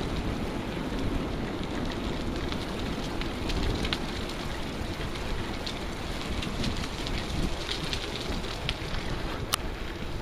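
Wind buffeting a handheld phone's microphone as a steady rumbling rush, with scattered faint ticks and one sharp click near the end.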